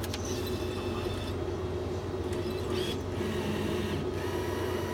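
Steady low electrical hum and room noise around an electronic roulette gaming machine. It carries a few sharp clicks and two brief stretches of faint high electronic tones, one near the start and one just after the middle.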